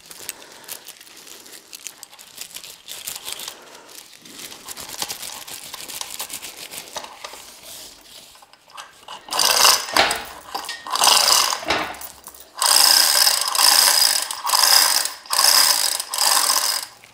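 Hand-operated chain hoist being worked by its hand chain, its ratchet pawl clicking rapidly as the chain runs through. The ticking is quiet for the first nine seconds, then comes in about seven loud strokes of a second or so each.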